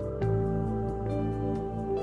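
Show soundtrack music: sustained chords that change about a fifth of a second in, over a light, steady percussion beat.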